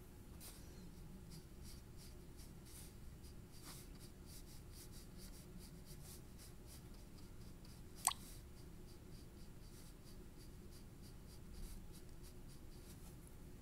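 Coloured pencil shading on paper: faint, quick scratching strokes, with a single sharp click about eight seconds in.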